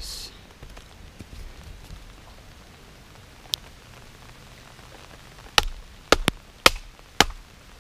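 A wooden baton striking the spine of a Fallkniven F1 fixed-blade knife to drive it into a small log: one knock about three and a half seconds in, then five sharp knocks in quick succession near the end.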